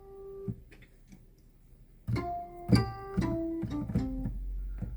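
Sampled guitar notes from a software instrument, played on a MIDI keyboard: a single note at the start, then after about two seconds a run of several plucked notes that ring and fade.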